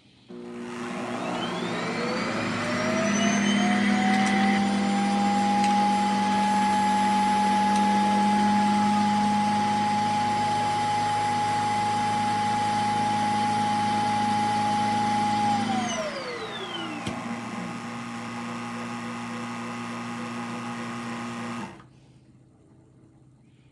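Vacuum motor starting up with a whine that rises in pitch over a few seconds, running steadily, then winding down after about sixteen seconds. A lower hum carries on for a few more seconds and then cuts off suddenly.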